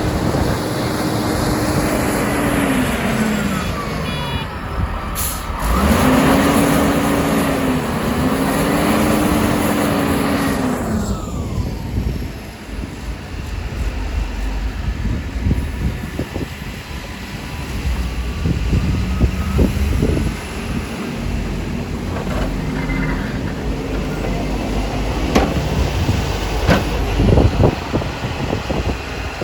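Heavy diesel trucks and snow-removal machinery running. The engine note rises and falls several times over a steady rush of noise, and a few sharp knocks come near the end.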